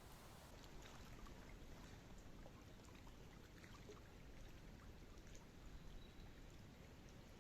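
Near silence: faint outdoor ambience, a low steady rumble with scattered faint ticks and clicks.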